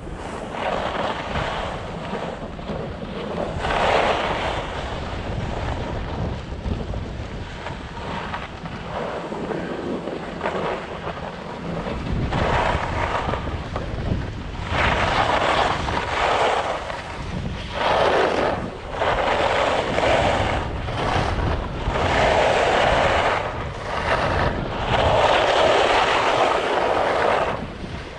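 Skis scraping and carving on hard-packed snow, a swoosh with each turn about every second or two, stronger in the second half. Wind rumbles on the microphone throughout.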